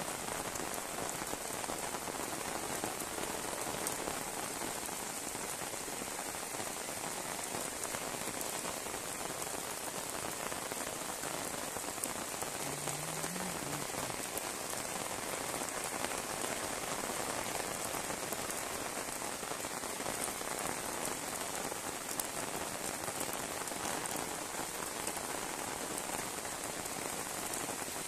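Heavy rain pouring steadily on a wet concrete lane and tiled roofs, a continuous even hiss of drops with no letup.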